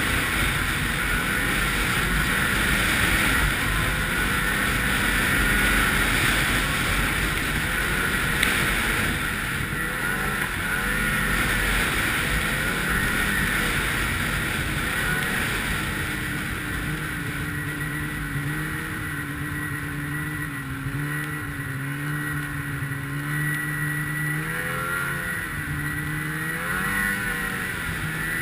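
Ski-Doo 800 snowmobile's two-stroke engine running under way on a trail, its pitch rising and falling with the throttle, then settling to a lower, steadier pitch about halfway through, with a constant hiss of wind and track noise.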